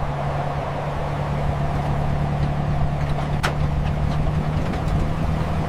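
A vehicle's engine runs with a steady low drone over road noise while towing a trailer, with one sharp click about three and a half seconds in.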